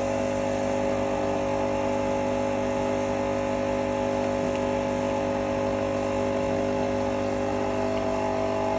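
Multi-capsule coffee machine's water pump droning steadily, with a constant pitched hum, as it pumps for a big-cup serving of hot water while its water tank runs empty.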